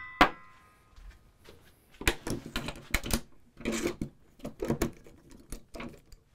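A metallic clink with a short ring as a hole saw is set down on the workbench. Then, from about two seconds in, a run of irregular knocks and rattles as a metal bench clamp is worked loose on the perforated table top.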